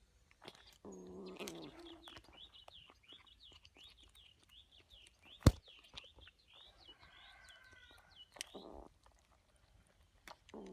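A small bird chirping over and over, about three short high chirps a second, after a short low call near the start. A single sharp click, the loudest sound, comes about halfway through.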